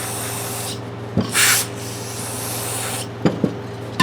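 Aerosol spray can hissing in bursts onto a rusted adjustable wrench to free its jaw, the loudest a short blast about a second and a half in. A few light metal clicks follow near the end.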